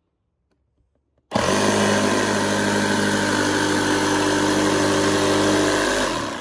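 Jigsaw cutting 3/4-inch marine plywood: the motor starts about a second in, runs at a steady speed through the cut, and winds down near the end.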